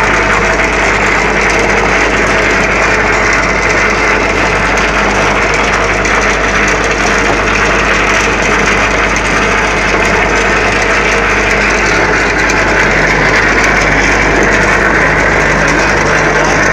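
Electric vibrating table for compacting concrete in paver-tile moulds, running with a steady mechanical hum and rattle.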